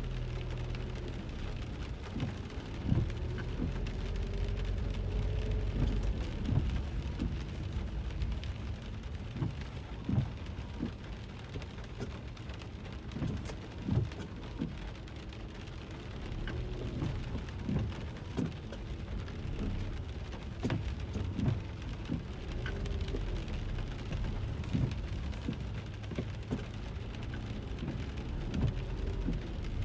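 Rain pattering on a car, heard from inside the cabin while driving, with scattered sharper drop ticks over the steady low rumble of the moving car.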